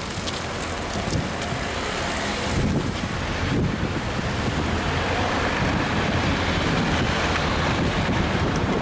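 Road traffic passing a level crossing: the tyre and engine noise of cars, slowly building in level as vehicles approach, with wind rumbling on the microphone.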